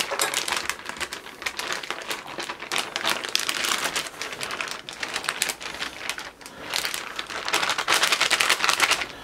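Plastic Ziploc zipper bag crinkling and rustling as it is handled and squeezed closed around pork chops in marinade, louder near the end.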